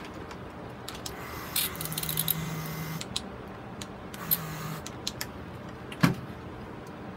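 Spray bottle misting water onto a sphagnum moss ball: a hissing spray with a low hum starting about a second and a half in and lasting over a second, then a shorter one just after four seconds. About six seconds in there is one sharp knock.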